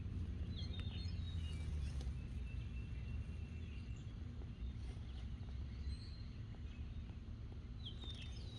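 Birds chirping in short calls, the same call heard about half a second in and again near the end, over a steady low rumble of outdoor background noise.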